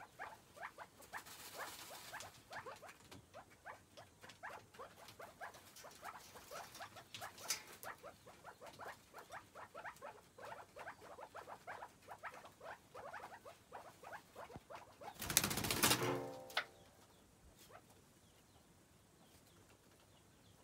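Chukar partridges, an adult with its chicks, calling in a rapid run of short falling peeps, several a second. About fifteen seconds in comes a louder, noisier burst lasting a second or so, and after it the calling fades to quiet.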